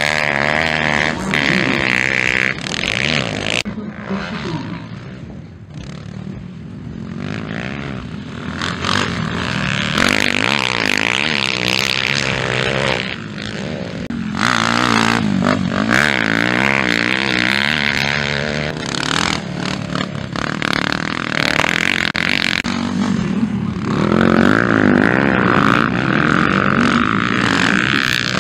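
Motocross bikes' four-stroke engines revving as they ride past one after another, the pitch rising and falling with the throttle through the corners. The sound dips for a moment a few seconds in, then the bikes come loud again several times.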